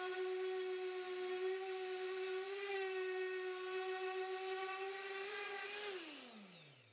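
Random orbital sander running with a steady whine while sanding an MDF board, then switched off about six seconds in, its pitch falling as the motor spins down.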